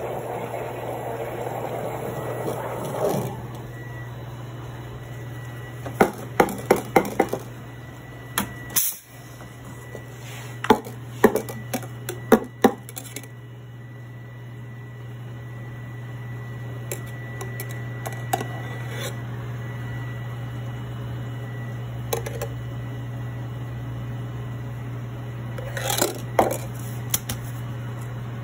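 Espresso machine steam wand hissing as it steams milk in a stainless steel pitcher, cutting off about three seconds in. Then clusters of sharp knocks and clinks, loudest in the middle and again near the end, over a steady low hum.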